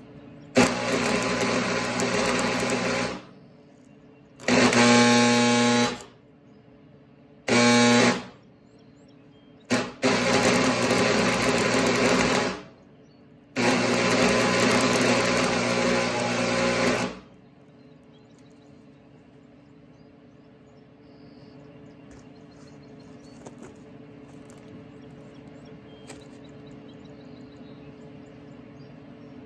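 Stick welding: the arc sounds in five bursts of one to four seconds each, the last stopping about 17 seconds in. A low steady hum continues under and after the welding.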